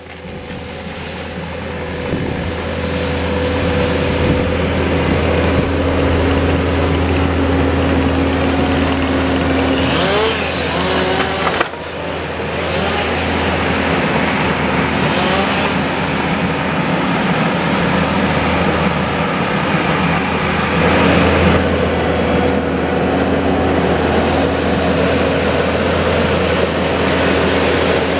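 Kubota compact track loader's diesel engine running steadily under load while the grapple works, with a brief rise and fall in pitch about ten seconds in.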